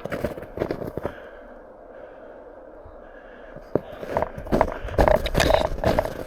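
Footsteps crunching in snow, several a second. They stop for a couple of seconds, then start again about four seconds in and grow louder.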